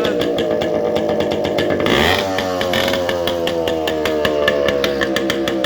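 Yamaha RX-series two-stroke single-cylinder motorcycle engine running at steady revs, its pitch sinking slowly. There is a brief rougher blip about two seconds in.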